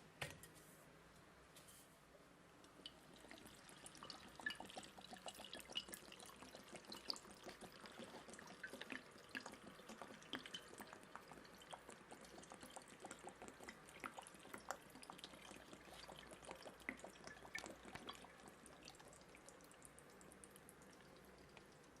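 Faint, irregular dripping and small clicks of water.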